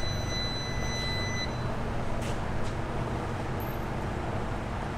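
A steady electronic beep that stops about one and a half seconds in, then two short clicks, a third of a second apart, from the fuel injectors of a Toyota 3UZ-FE V8 being test-fired one at a time through the EMU Black ECU's test outputs, over a steady low rumble.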